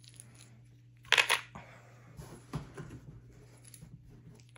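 A handful of board-game coin tokens dropped into a compartment of a cardboard tray: one short clatter about a second in, then a few lighter clicks as the tokens settle or are nudged into place.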